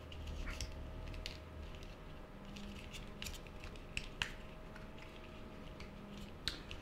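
Faint clicks and taps of hands handling a small 3D-printed plastic case and its wires, a few sharper ticks about four seconds in and near the end, over a faint steady hum.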